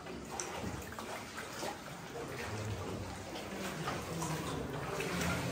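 Water sloshing and lapping as rowboats' oars stroke through a cave river, with small scattered splashes.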